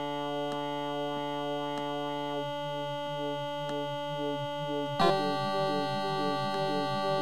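Synth pad from a homemade sampler synthesizer in Ableton Live's Simpler, holding a chord. About two seconds in, a rhythmic wobble sets in as the filter and its LFO are switched on by a macro. About five seconds in, the pad gets louder and brighter and the wobble speeds up.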